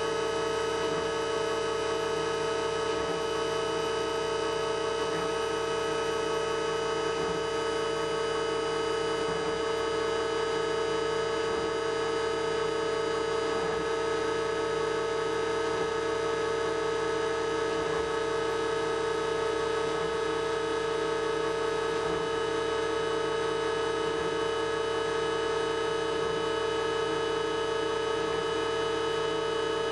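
Roland MDX-540 milling machine's spindle running with a steady, constant hum-like whine as its small bit cuts into a copper-clad circuit board.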